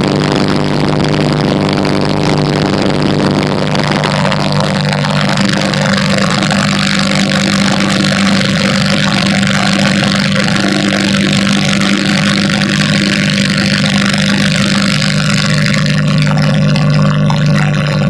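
Light aircraft's engine and propeller droning steadily in flight, heard from inside the cockpit, with a steady hum and a rush of airflow noise.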